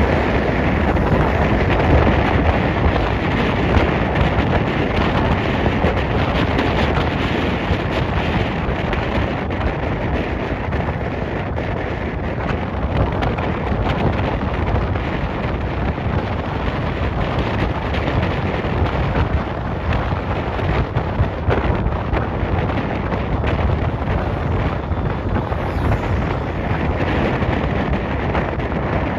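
Wind rushing over the microphone of a moving vehicle: a loud, steady rush with low rumble that never lets up.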